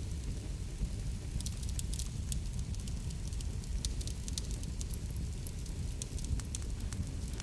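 Wood fire crackling in a fireplace: sharp, irregular pops and snaps over a steady low rumble.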